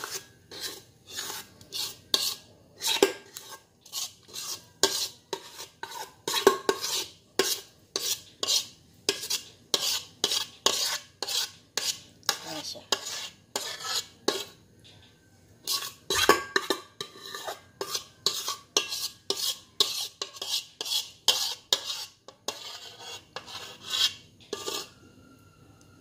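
Metal spoon scraping cake batter out of a stainless steel mixing bowl, in quick repeated strokes about twice a second, with a short pause about halfway.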